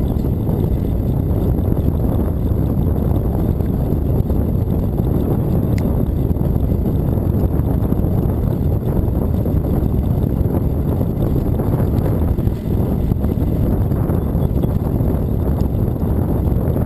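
Steady low rumble of wind buffeting the microphone, mixed with tyre noise on asphalt, from a bicycle riding along at speed.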